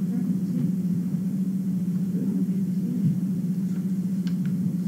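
Steady low hum, with a few faint ticks of paper being handled near the end.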